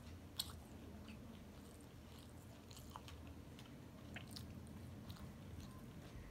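Faint mouth chewing: a man chewing a mouthful of rice and small fried puti fish, with scattered soft wet clicks and smacks and one sharper click about half a second in.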